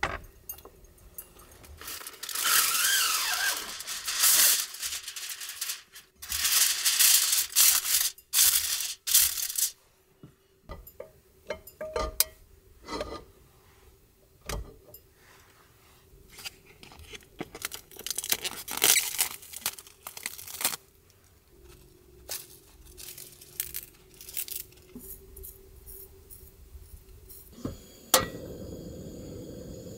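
Aluminium foil torn off a roll and crinkled into a frying pan, in loud rustling stretches with scattered clicks and knocks of handling. Near the end a sharp click is followed by a steady hiss, which fits the portable gas stove lighting.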